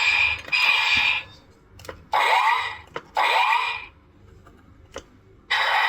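Bandai DX Gavvwhipir toy playing short electronic sound effects through its small speaker: four bursts of about half a second each, with sharp clicks between them. A longer continuous sound starts near the end.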